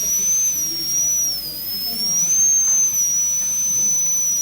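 High-speed air-turbine dental handpiece running with a steady high whine that sags and recovers slightly in pitch as the bur cuts a class I cavity preparation in a tooth.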